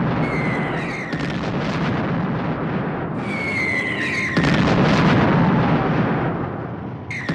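Air-raid sound effects: the descending whistles of falling bombs, each followed by an explosion. The loudest blast comes about four and a half seconds in, and another lands near the end.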